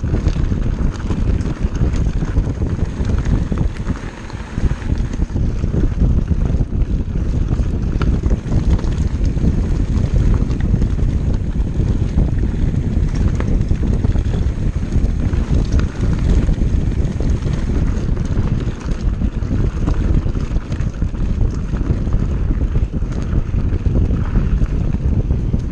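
Wind buffeting the microphone in a steady low rush, mixed with the rumble and scattered rattling clicks of an Orbea Laufey hardtail mountain bike rolling over a dry, rocky dirt trail.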